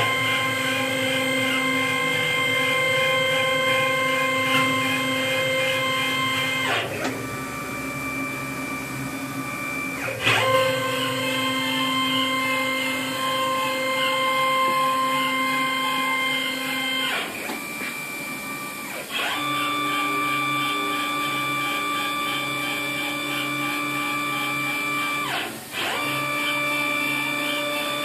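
Stepper motors of a Torchmate 4x4 CNC plasma table driving the gantry and torch head along a cutting path, torch off: a steady whine of several tones that stops and starts again as the moves change, with quieter pauses about a quarter of the way in, past the middle, and briefly near the end.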